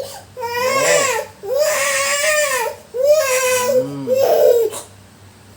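Small child crying in four long wailing cries with short breaths between them, dropping quiet near the end, while being massaged.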